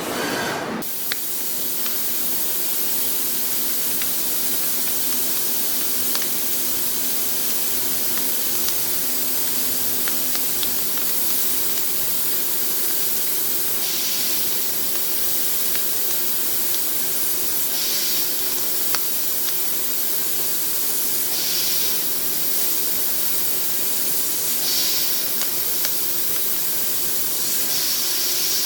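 Steady hiss of a semi-dry (MQL) air-oil mist nozzle spraying during lathe turning of A6061 aluminium, with a faint steady machine hum underneath. Brighter bursts of hiss return about every three to four seconds over the second half, with a few light ticks.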